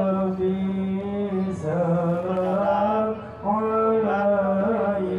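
A voice chanting Islamic sholawat in long held notes with melodic ornaments, breaking off briefly about three seconds in before carrying on.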